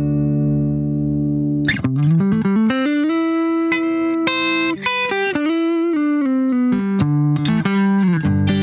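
Electric guitar played through an Xvive Lemon Squeezer compressor pedal. A held chord rings out, then about two seconds in a quick slide leads into a phrase of single notes and short chords, settling on another sustained chord near the end.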